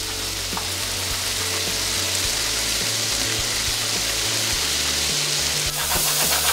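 Sliced venison with peppers, onion and mushroom sizzling in a frying pan, a steady hiss, with light knife taps from chopping herbs on a plastic cutting board. Near the end the pan is stirred or shaken, adding a quick rapid scraping.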